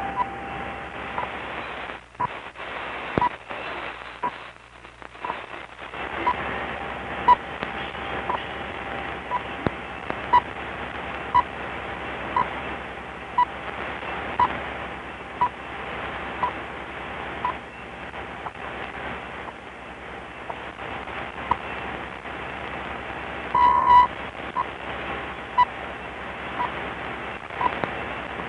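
Shortwave radio hiss with a time signal's short 1 kHz ticks, one a second, and a longer beep about 24 seconds in. A faint steady whistle runs under the ticks, and the signal fades deeply for a few seconds near the start.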